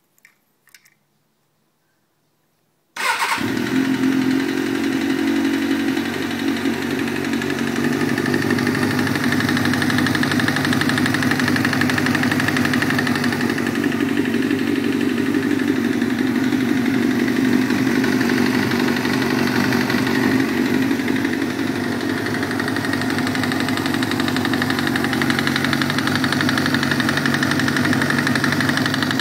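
1998 Kawasaki ZX-6R's inline-four engine starting about three seconds in after a few faint clicks, then running steadily at idle with rod knock: the sign of a spun connecting-rod bearing.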